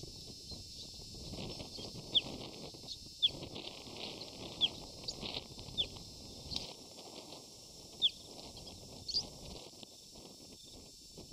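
Short, high-pitched animal chirps, about seven of them at irregular gaps of one to two seconds, each a quick downward sweep, over a steady low background noise.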